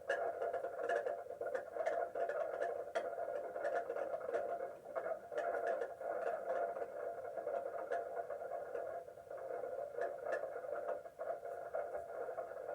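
Tornado warning siren sounding a steady wail, with many faint irregular clicks over it.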